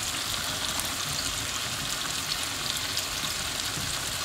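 Chopped tomatoes, onions and fish frying in groundnut oil in a pan: a steady sizzle with fine crackling, stirred with a wooden spoon.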